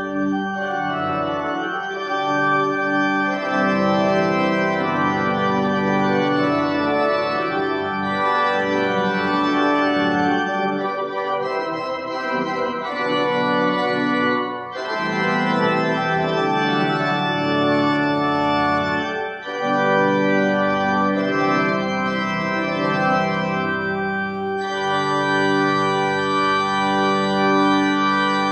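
Organ music: slow, sustained chords. The sound breaks briefly twice around the middle and turns brighter and fuller in the last few seconds.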